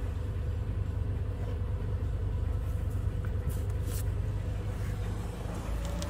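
Steady low rumble with a faint even hum above it, and two light clicks a little past the middle.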